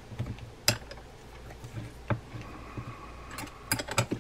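A few small metal clicks and taps as a handle wrench turns and tightens the handle nut on a Penn GT1 330 level-wind reel. One comes about a second in and another past the halfway mark, with several close together near the end.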